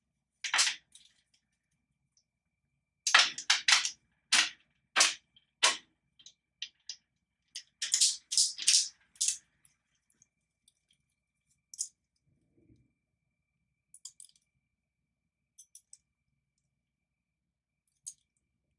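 Sharp clicks and taps from handling the small allergen dropper bottles while drops are placed on the skin: a quick run of about half a dozen clicks a few seconds in, another cluster about eight seconds in, then a few faint ticks.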